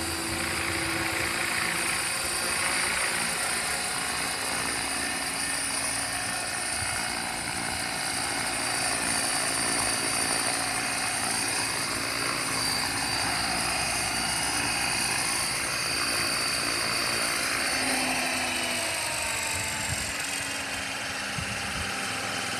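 500-size RC model helicopter flying: steady rotor whir with a high motor whine, its pitch sliding up and down as it manoeuvres. The pitch settles lower near the end as it comes down and lands.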